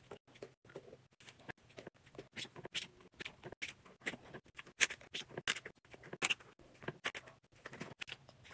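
Squishy stress balls being set one by one into a wire-mesh drawer: irregular light knocks and rustles, with a few louder ones near the middle.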